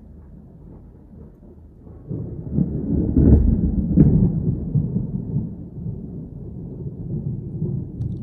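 Thunder from a severe thunderstorm: a faint low rumble that swells suddenly about two seconds in into a loud peal with sharp cracks at its peak, then rolls on more softly.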